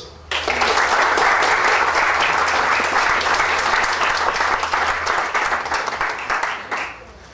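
Audience applauding, beginning just after a second of quiet and tailing off near the end.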